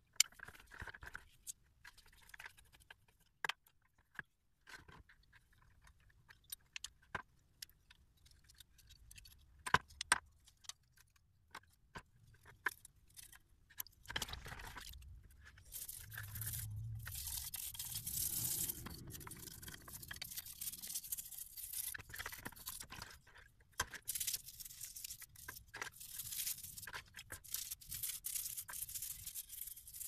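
Small sharp metal clicks and taps from a screwdriver and the parts of a mortise door lock being taken apart, then, from about halfway through, a toothbrush scrubbing the lock parts, a steady rasping scrub with short pauses.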